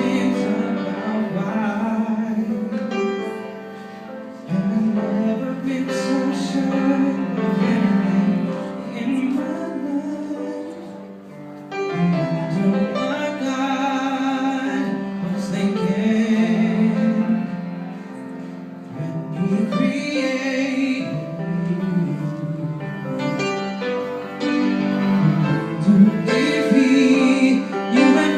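A singer performing a song with instrumental accompaniment, live, as a sound check. The music thins out briefly twice, around four seconds and eleven seconds in.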